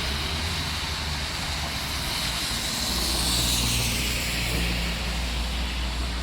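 Rain hiss mixed with traffic on a wet street: tyres swish through water as vehicles pass, one swelling and fading through the middle, over a low rumble.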